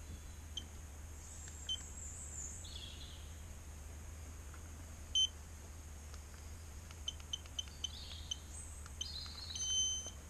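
Short electronic beeps over a steady low hum: a single loud beep about halfway, a quick run of five short beeps near the end, then a longer two-pitch beep, with faint chirps in between.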